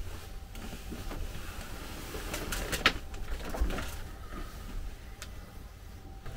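A few sharp clicks and knocks, the loudest about three seconds in, over a steady low rumble.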